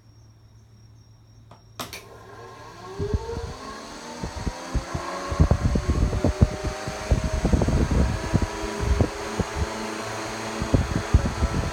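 Train-car electric fan switched on with a click about two seconds in, its motor spinning up with a rising whine that levels off into a steady run. From about three seconds on, irregular low buffeting joins it as the fan's airflow hits the microphone. The fan is running after a repair.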